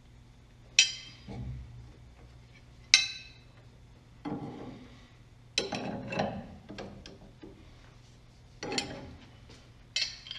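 Metal hand tools and parts clinking and clattering during work on the steering rack: two sharp clinks that ring briefly, then a run of knocks and rattles, and a few more clinks near the end.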